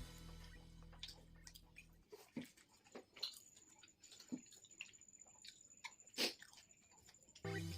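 Close-up mouth sounds of a man chewing chapati with egg gravy: faint, scattered wet smacks and clicks. Background music fades out in the first two seconds and comes back near the end.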